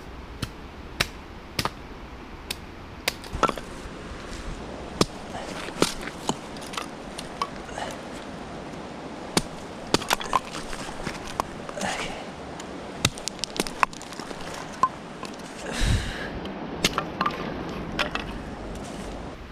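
An axe splitting firewood into kindling: a run of sharp chopping knocks, about one a second, as the wood cracks apart. A brief low thump comes about three-quarters of the way in.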